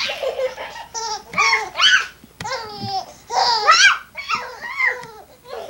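Baby laughing hard in a string of short, high-pitched bursts of laughter with brief gaps between them.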